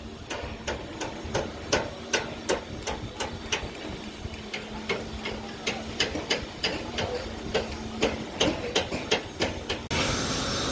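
Hammer blows on footing formwork, a steady run of sharp knocks about three a second that breaks off suddenly near the end.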